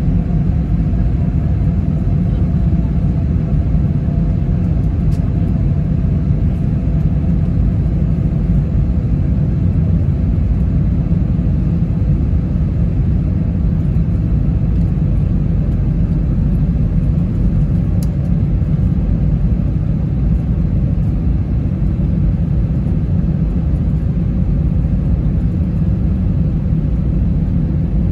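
Steady cabin noise of a jet airliner on approach, heard from inside: an even low rumble of engines and airflow, with a faint steady hum over it.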